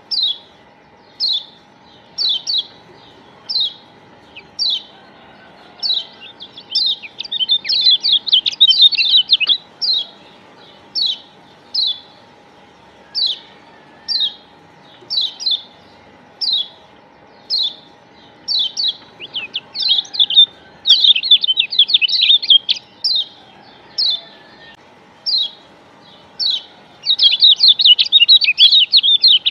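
Yellow white-eye (kecial kuning, a Lombok Zosterops) calling: short high chirps about once a second, broken three times by long runs of fast, dense twittering.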